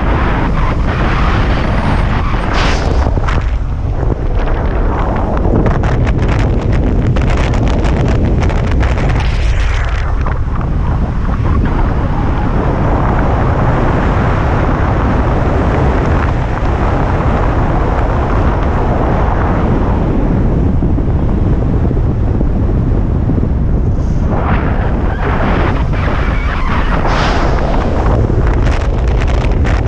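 Wind rushing over the camera microphone in flight under a speed wing: a loud, steady low rumble, with gusty crackling surges for the first third and again near the end.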